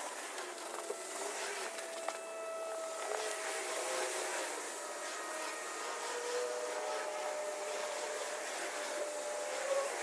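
A motor droning steadily in the background, its pitch wavering a little.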